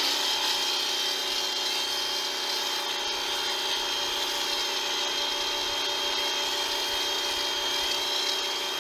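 Portland 1750 electric pressure washer running steadily with a high whine, its stock foam gun spraying soap foam with a hiss.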